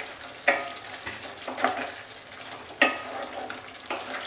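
A spatula stirring and scraping chicken in tomato gravy around a frying pan, a stroke about once a second, with a low sizzle between the strokes.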